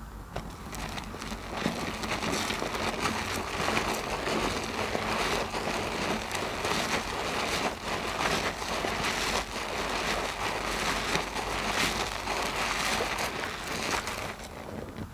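A soap-soaked mesh loofah squeezed by hand in thick soap foam: continuous wet squelching with dense crackling. It picks up about a second in and eases near the end.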